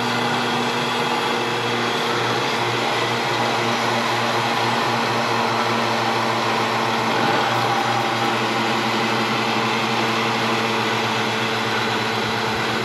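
Countertop blender motor running steadily at speed, blending a thick mixture of soaked Irish moss (sea moss) and linseed.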